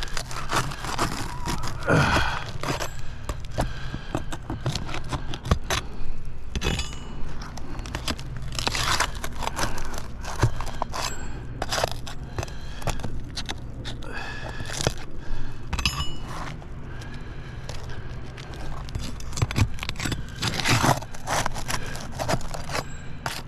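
A brittle, granule-shedding asphalt shingle being lifted and worked loose to reach its nail: irregular scraping, crackling and crunching with many sharp clicks, over a steady low hum.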